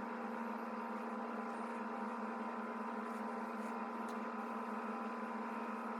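A steady hum with several fixed pitches, holding an even level throughout.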